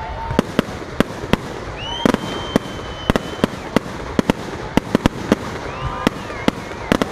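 Aerial fireworks display: a rapid, irregular string of sharp bangs, about three a second, with a few whistling tones rising and holding among them.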